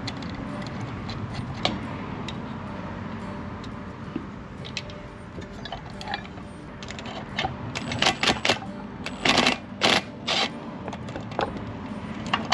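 Small metallic clicks and clinks of nuts, washers and terminals being handled on a winch solenoid, with a run of louder clattering about eight to ten seconds in.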